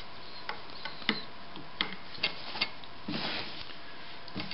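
Hands handling a stopped Singer 15-91 sewing machine after stitching: a few sharp, irregular clicks from the machine's parts and, about three seconds in, a brief rustle as the test cloth is drawn out from under the presser foot.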